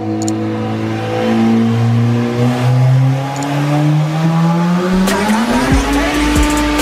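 Car engine accelerating under load on a chassis dyno, its pitch rising steadily for about five seconds and then holding high.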